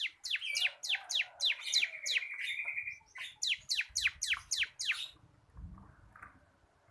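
Bar-winged prinia (ciblek) singing a rapid series of sharply falling whistled notes, about four or five a second, with a buzzy trill under them for a second or so. The song stops about five seconds in.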